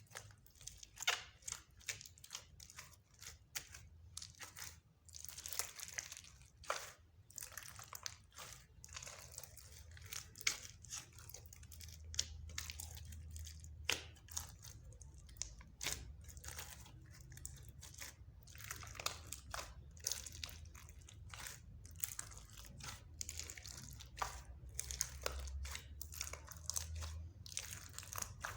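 Mixed slime being squished, stretched and kneaded by hand, giving a continuous run of irregular sticky clicks and crackles.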